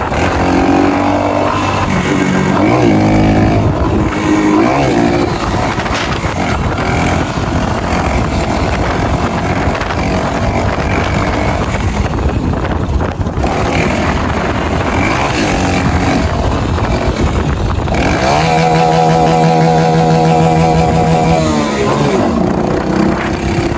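Honda Pop 110i motorcycle's small single-cylinder four-stroke engine running while being ridden, its note rising and falling with the throttle. A steady held note runs for a few seconds near the end.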